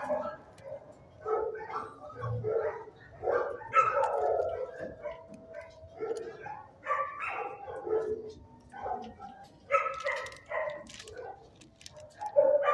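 Dogs barking and yipping in shelter kennels, a steady run of short, irregular barks.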